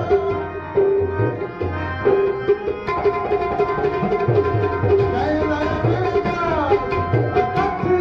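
Music with tabla drumming under a sustained melody line that glides down in pitch near the end.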